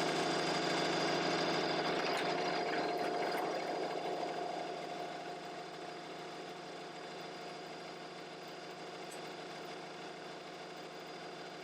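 An engine idling steadily with a constant hum, growing quieter about halfway through.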